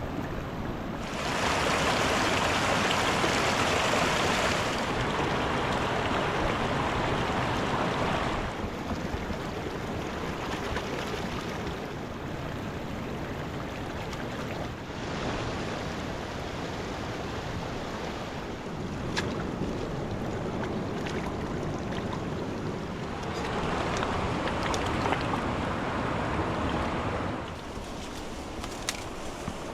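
Rushing water of a mountain river: a steady rush that gets louder and drops back in steps several times, with a few faint clicks near the end.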